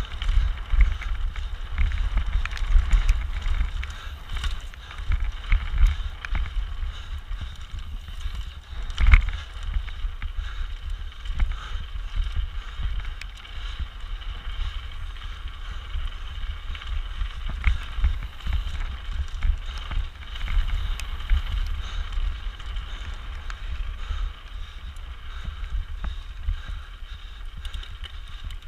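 Mountain bike racing down a rough, rocky trail, heard from a GoPro mounted on the bike or rider: tyres crunching over stones, the bike clattering with constant small knocks, and wind buffeting the microphone as a low rumble. One hard knock stands out about nine seconds in.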